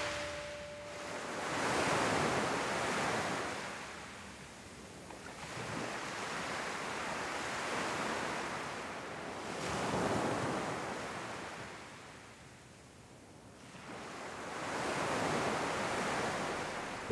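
Small sea waves breaking and washing up a beach, the surf swelling and fading in slow surges every few seconds. A held musical tone dies away in the first second.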